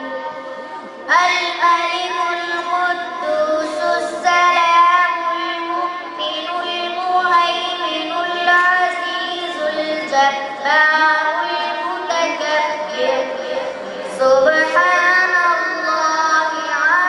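A boy reciting the Quran in a melodic, chanted tajweed style through a microphone. He holds long notes that glide up and down, in phrases separated by short pauses for breath.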